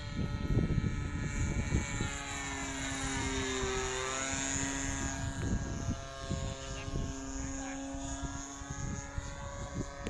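The DLE 20cc single-cylinder two-stroke gasoline engine and propeller of an RC model airplane, running steadily in flight. The sound sweeps as the plane passes by about four seconds in.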